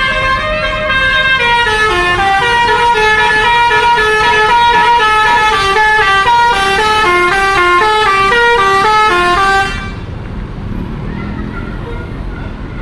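Telolet multi-tone musical horn on the NPM 'Tuan Muda' bus playing a loud melody of quickly stepping notes, at first two notes alternating, then a faster run of notes. It cuts off suddenly about ten seconds in, leaving quieter background noise.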